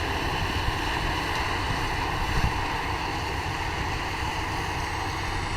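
Farm machinery running steadily during the wheat harvest, with wind rumbling on the microphone.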